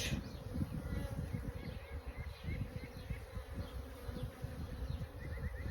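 Honeybees buzzing steadily around an opened hive during an inspection, many wings humming together.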